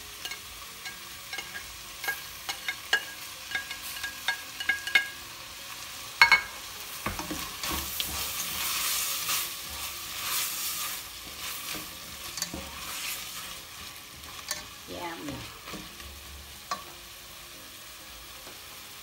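Chopped vegetables frying in a stainless steel pan, freshly added celery and greens sizzling as they are stirred and scraped with a slotted spatula. Clicks and taps against the pan come through the sizzle, with a loud knock about six seconds in. The sizzle is louder from about eight to eleven seconds, then settles.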